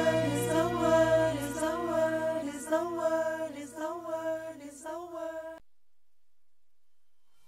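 Background song ending: a singing voice over held chords, fading out and dropping to silence about five and a half seconds in.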